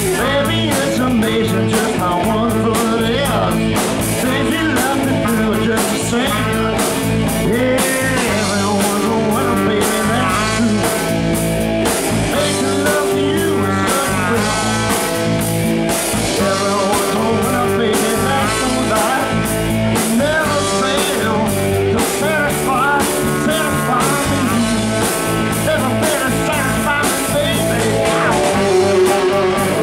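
Live rock and roll band playing: a male singer with saxophone, electric guitars and drum kit over a steady drum beat.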